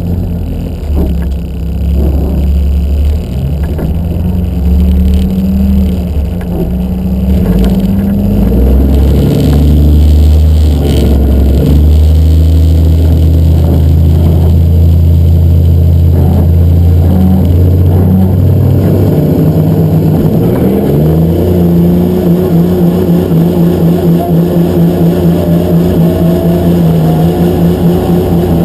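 Dodge Ram race truck's Cummins turbo-diesel engine heard from inside the cab: running at the start line with its pitch stepping up and down, then about 20 seconds in pulling away hard down the drag strip, with a faint rising whine over the engine.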